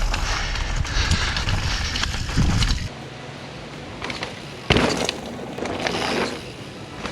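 Mountain bike ridden down a steep rocky trail and off a rock drop: rushing wind and tyre noise for about the first three seconds, then quieter, with one sharp knock about four and a half seconds in.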